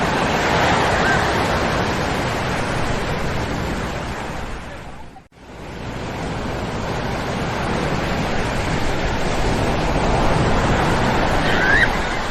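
Ocean surf breaking on a sandy beach: a steady, dense rushing of waves that drops away to almost nothing about five seconds in, then swells back. A short, high, gliding cry is heard near the end.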